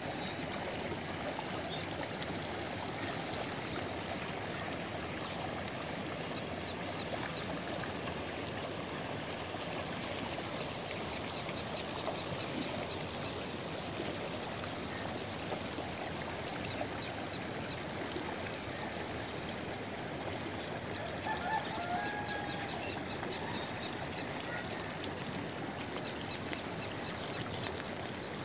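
Steady rushing outdoor background noise with faint high bird chirps scattered through it, and a short brighter call about 21 seconds in.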